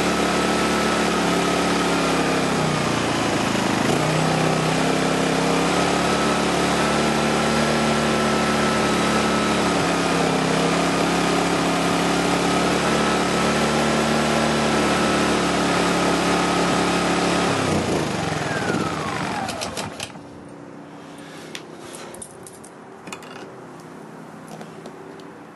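Fuji Micro 5200i generator engine running, its speed sagging briefly twice, then stalling about seventeen seconds in and winding down over a couple of seconds, followed by faint clicks. The stall is a fault the owner thinks comes from a blocked carburettor jet.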